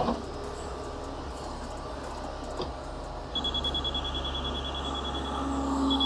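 A Kubota B2150 backhoe's diesel engine runs steadily in the background. From about three seconds in, a rapid, high-pitched electronic beeping starts, then breaks off into slower separate beeps near the end.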